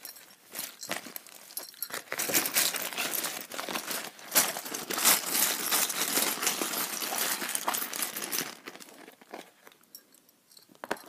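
A bag of small charms being shaken: crinkling and rattling for about six seconds, then fading to a few scattered light clicks, with sharper clicks near the end.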